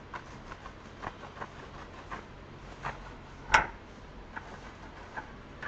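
A knife cutting through a crisp grilled brown-bread sandwich on a cutting board: a run of small crunches and ticks, with one louder knock about three and a half seconds in.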